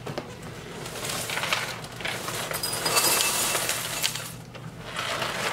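Raisin Bran Crunch cereal poured from its box into a ceramic bowl: a rattling patter of flakes and clusters with small clinks against the bowl. It builds about a second in, is loudest around three seconds, and eases briefly before starting up again near the end.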